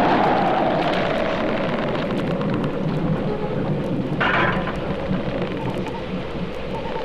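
Thunderstorm sound effect from a vinyl record: steady rushing rain with a low thunder rumble, a brief sharper burst about four seconds in, and the record's surface clicks over it.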